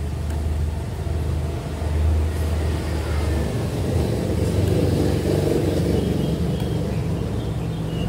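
Motor vehicle engine running close by, a low steady rumble that rises somewhat in pitch and gets a little louder about halfway through.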